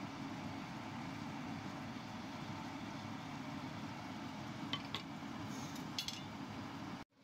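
Pot of legumes at a rolling boil on a gas stove, bubbling steadily, with a few light clicks of a wooden spoon against the pot near the end. The sound cuts off suddenly just before the end.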